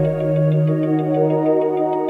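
Background music with sustained notes over a held low tone.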